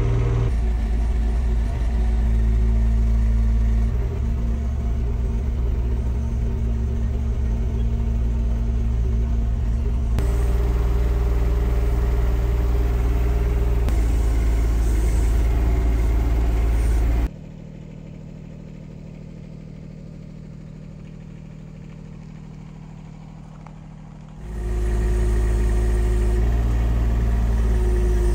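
Mini excavator's Kubota three-cylinder diesel engine running, a steady low drone with a held tone above it. The sound changes abruptly several times, and drops to a much quieter stretch of about seven seconds in the second half before returning.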